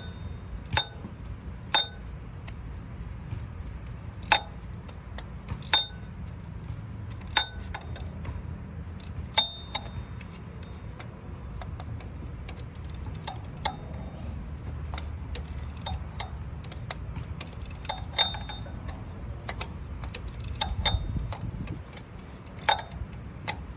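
Sharp metallic clinks of hand tools against metal, one every second or two, each ringing briefly, as the bolts of a new water pump are tightened.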